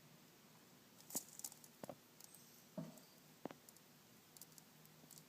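Near silence broken by a few faint, short clicks and taps, four of them louder, spread through the middle, from a baby pink-tongued skink chewing a slug.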